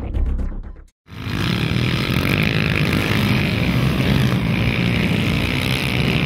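Quad bike (ATV) engines running steadily at speed: a loud, continuous engine drone that starts after a brief cut to silence about a second in.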